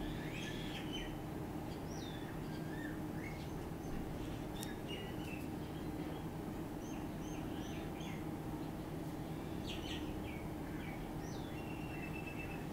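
Birds chirping, with short scattered calls throughout, over a steady low hum.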